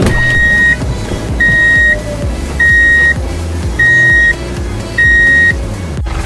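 A vehicle reversing alarm beeping five times, about one beep every 1.2 s, each beep half a second long on a single steady pitch, over background music.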